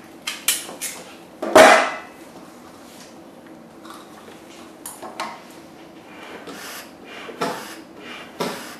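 Clicks and knocks of airway equipment being handled during a mannequin intubation: a laryngoscope, a cuff syringe and a bag-valve. The loudest is a clatter about a second and a half in, with fainter clicks and rustles after it.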